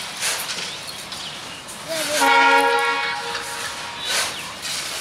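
Diesel locomotive horn sounding one steady blast of a little over a second, about two seconds in. Short bursts of hiss come and go around it.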